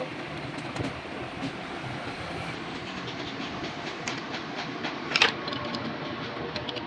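Yamaha R15 single-cylinder engine running steadily, with a stream of light ticks from the engine and one sharper click about five seconds in.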